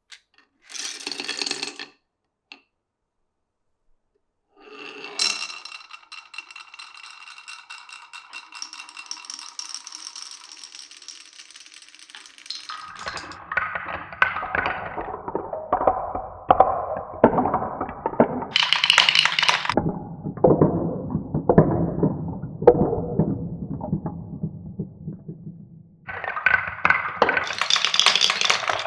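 Marbles rolling and clacking through a wooden marble run: a short clatter, a pause, then about eight seconds of steady rolling, followed by a long run of knocks and clacks as balls drop through the wooden blocks and rails.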